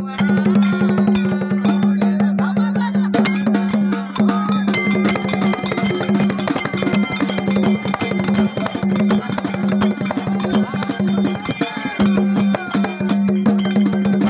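Fast hand drumming on a large rope-tensioned dhol and a smaller drum, in Dhangari folk music, over a steady low tone. The beat breaks off briefly about four seconds in and again near the end.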